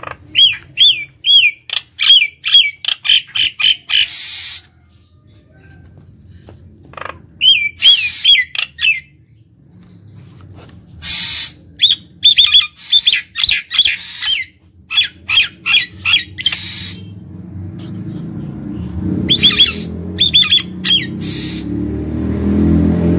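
Common myna (jalak nias) calling loudly in bouts of rapid, repeated looping whistles mixed with harsh squawks. Pauses of a few seconds fall between the bouts.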